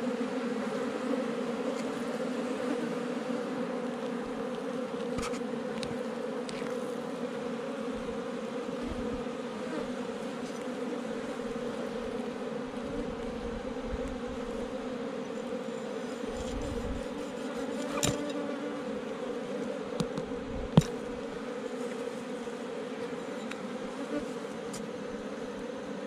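Honeybees buzzing steadily in a swarm around their comb nest in the ground, a low even hum. A few sharp clicks come through near the end.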